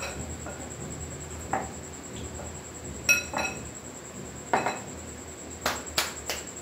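Metal spoon clinking against a glass mixing bowl while batter is stirred: a handful of separate sharp clinks, three in quick succession near the end.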